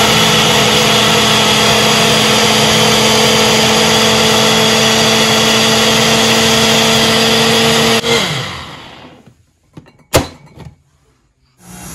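Small electric kitchen appliance motor running at a steady high speed, then winding down and stopping about eight seconds in. A sharp click follows after a short silence.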